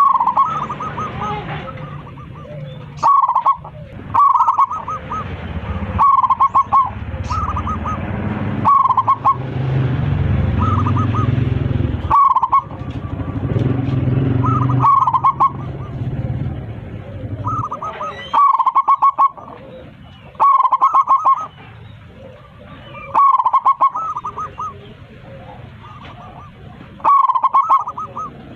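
Zebra dove (perkutut) cooing: short phrases of rapid staccato notes, repeated about every two to three seconds. A low background rumble runs under the song through the middle stretch.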